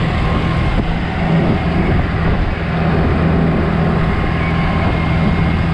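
A 1949 Willys CJ-3A's four-cylinder flathead engine pulling the jeep down the road, heard from the open driver's seat with steady road and wind noise. There is a brief lull about two and a half seconds in.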